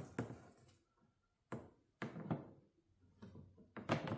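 A handful of separate knocks and thunks as the plastic cover panels of a Yamaha EF2000iS inverter generator are handled and fitted back on; the loudest knock comes near the end.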